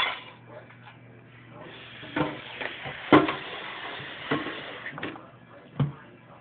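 Dishes being handled on a kitchen counter: a few sharp knocks of a bowl and plate, the loudest about three seconds in, over a scraping hiss in the middle of the stretch.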